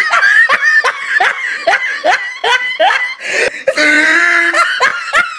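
A person laughing: a quick run of short rising 'ha' sounds, then a longer drawn-out note in the second half.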